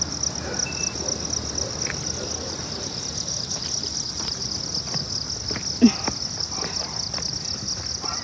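Steady chorus of insects, a high-pitched buzz that pulses rapidly. A few short knocks sound over it, the sharpest about six seconds in.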